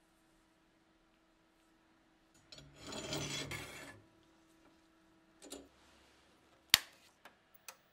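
A scraping rub of rusty steel lasting about a second and a half as the bayonet blade is set into a metal clamp. Later comes one sharp click of a welding machine's rocker power switch being flipped on, then two fainter clicks.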